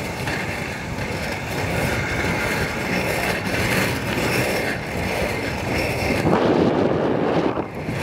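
Inline skate wheels rolling steadily over an asphalt road: a continuous rough rumble with a hiss above it, growing louder and rougher about six seconds in.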